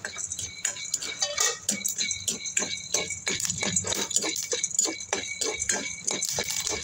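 Popcorn kernels rattling and scraping in a cast-iron pot as a spatula stirs them, with kernels starting to pop in a run of irregular sharp clicks.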